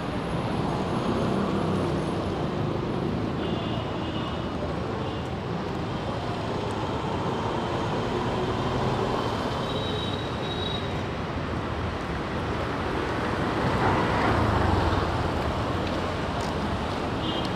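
City road traffic on a wet road: a steady wash of engines and tyre noise from auto-rickshaws and cars, swelling as a vehicle passes close about 14 seconds in.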